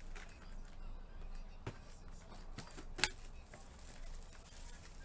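Light handling noises of trading cards and their packaging on a table: soft scattered clicks and rustles, with one sharp click about three seconds in.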